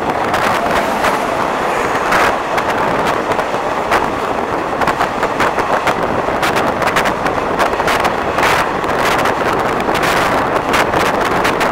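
Two trains passing each other at speed on adjacent tracks, heard from the open door of a moving passenger train: a loud steady rush with a rapid clatter of wheels and knocks throughout, mixed with wind buffeting the microphone. The oncoming train is an electric locomotive with red LHB coaches.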